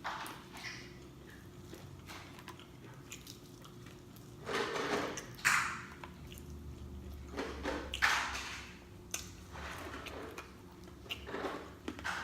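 A person eating: wet chewing and lip-smacking, with several sharper smacks, the loudest about four and a half, five and a half and eight seconds in.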